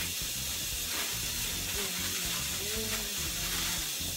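Kitchen faucet running steadily into the sink, filling it with dishwater: a steady hiss, with a few light knocks of items being moved around.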